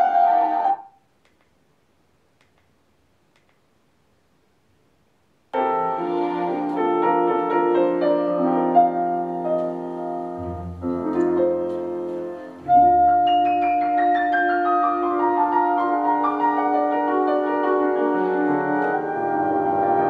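Classical music, piano with orchestra, played through a Samsung HW-K550 3.1 soundbar and subwoofer. It breaks off about a second in, there are about four seconds of near silence, then the music resumes with low bass notes coming in.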